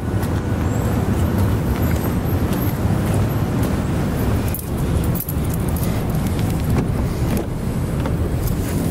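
Steady low rumble with a rushing noise over it, like the running noise of a moving vehicle.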